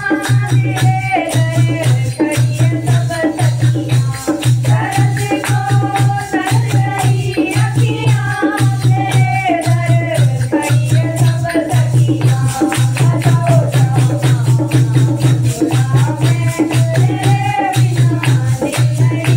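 Women's kirtan group singing a Hindi devotional bhajan together, with the jingles of a chimta, hand cymbals and hand clapping keeping a fast, even rhythm over a steady low beat about twice a second.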